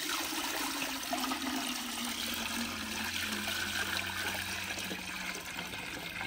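Water pouring in a steady, unbroken stream into a large metal cooking pan (tasla), filling it.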